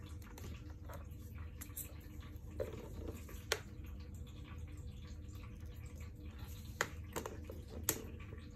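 Steady low room hum with a few sharp little clicks and taps, three of them standing out, from wires, probes and a soldering iron being handled on a battery pack.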